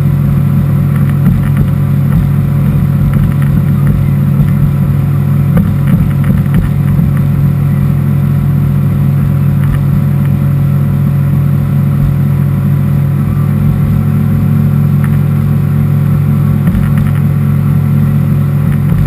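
Boat's outboard motor running steadily at cruising speed, a constant low drone, with wind rushing over the microphone and water hissing past the hull.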